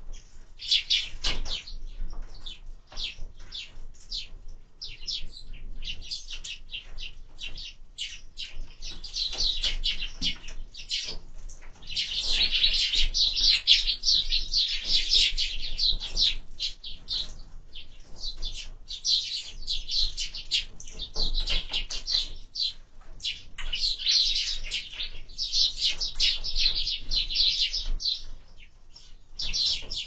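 A flock of sparrows chirping without pause in many short overlapping calls. The chatter grows densest a little before the middle and again through much of the second half.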